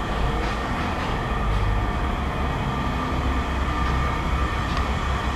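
Steady low mechanical rumble of running machinery, with a faint steady hum above it.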